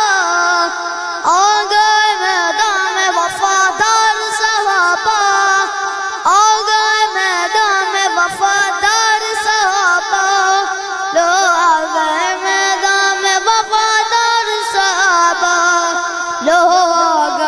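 A boy singing an Urdu devotional kalam into a microphone, with long held notes that glide up and down between phrases.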